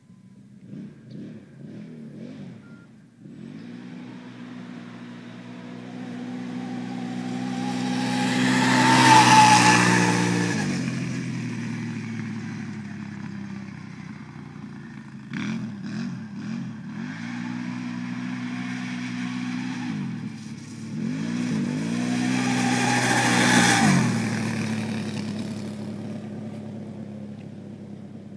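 2008 Can-Am Renegade 800 HO EFI ATV's V-twin engine revving up and down as the quad is ridden around, passing close by twice: loudest about nine seconds in and again just before twenty-four seconds, the pitch dropping sharply each time it goes past and away.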